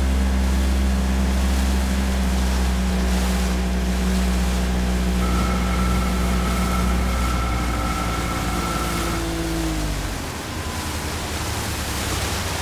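Motorboat engine running steadily, a low drone. About five seconds in a steady higher tone joins it for about four seconds, and near ten seconds in the deepest part of the drone drops away.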